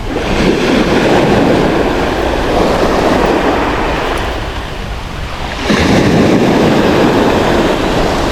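Waves breaking on a beach, two surges of surf washing in, the second beginning suddenly about six seconds in, with wind buffeting the microphone.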